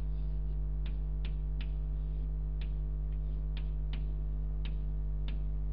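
Chalk ticking and scratching on a blackboard while drawing, about nine short irregular ticks, over a steady electrical mains hum.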